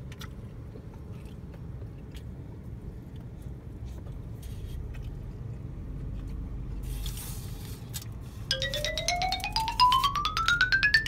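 Steady low rumble in a car cabin. About eight seconds in, a fast run of plinking xylophone-like notes climbs steadily in pitch, an added sound effect.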